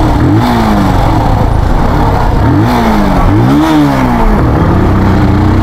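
Benelli 300 cc motorcycle engine revving up and down several times at low road speed, its pitch rising and falling with the throttle, over a steady rushing wind and road noise.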